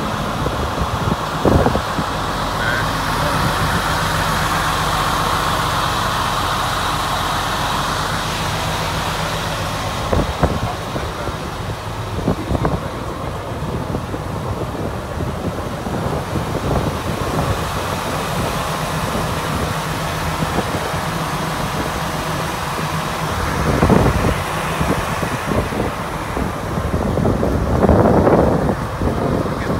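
Semi truck's diesel engine idling steadily, with a few sharp knocks and a couple of louder rushes of noise near the end.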